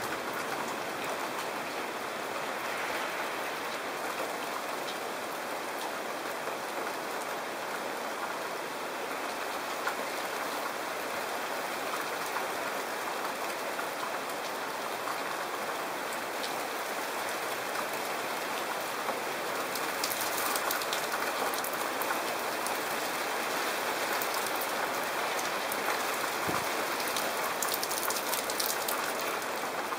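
Heavy rain pouring steadily onto wet pavement and puddles, growing a little louder and crisper about two-thirds of the way through.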